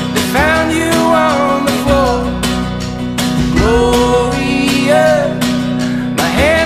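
Background song: a singing voice over guitar with a steady beat.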